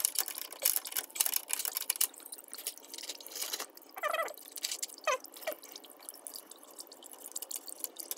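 Fluid dripping and trickling from a just-loosened Corvette oil cooler line: rapid, irregular drips with a few louder plops about four and five seconds in.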